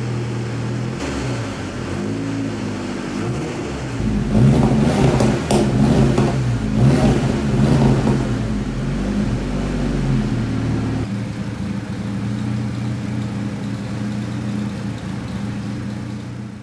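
Ford Escort RS Cosworth's turbocharged four-cylinder engine running just after a full rebuild, a steady idle with its pitch wavering a little early on. From about four seconds to about eleven seconds it gets louder and rougher, with a few sharp cracks, then settles back to a steady idle.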